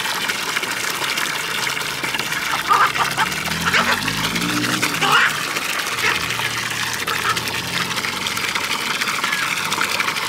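Water from a garden hose running steadily into a large poultry water container as it fills. Short bird chirps sound over the water.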